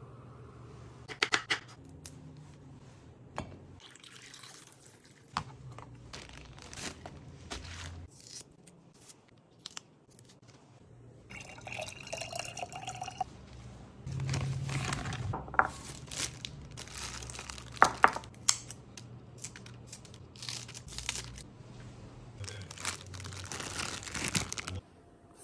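Kitchen prep handling sounds: clicks and knocks of food and containers on a counter, with liquid poured into a small glass jar about halfway through, rising slightly in pitch as it fills. A plastic zip-top bag crinkles near the end.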